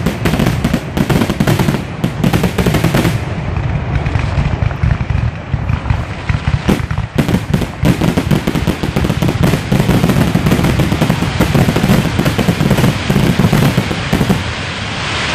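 Fireworks going off in a rapid, nearly continuous barrage of bangs and crackles, which stops shortly before the end.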